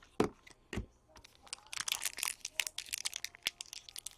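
Crinkling and rustling of a trading-card pack wrapper being handled: a couple of light clicks, then a dense run of crackles.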